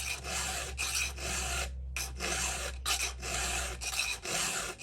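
Hand file rasping against the cutter teeth of a new saw chain in a run of repeated push strokes with short breaks between them. This is the chain's first filing, cleaning off the factory burr and sharpening the working corner and top plate.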